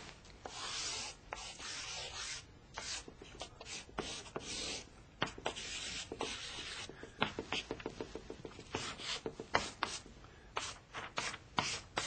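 A thick black pen drawing on a large paper sketch pad: longer scratching strokes in the first half, then many short quick strokes and taps.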